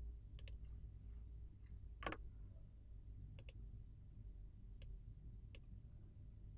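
A computer mouse button clicking several times, some clicks in quick pairs, over a faint steady low hum. A short, duller knock about two seconds in is the loudest sound.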